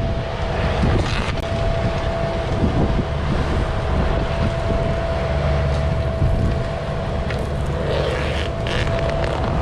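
Construction machine engine running steadily, with a constant high whine over the engine rumble.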